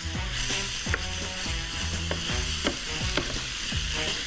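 Spiced chunks of meat sizzling in a hot frying pan while a wooden spoon stirs and scrapes them, knocking against the pan about every half second. This is meat being browned with curry spices that are starting to stick to the pan's bottom.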